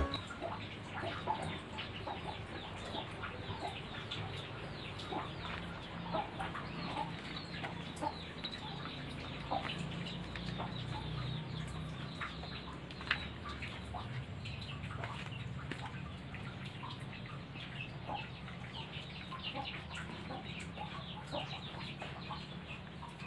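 Several cats eating homemade wet food from bowls, with many small irregular clicks and smacks of chewing and lapping over a low steady hum.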